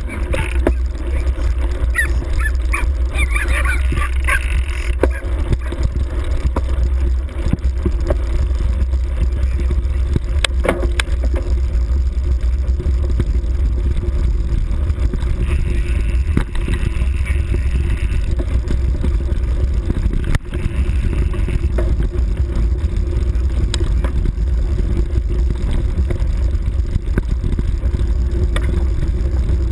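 Steady low rumble of travel noise from a camera moving along a grassy forest track, with a few short high chirps about a second in and again past the midpoint.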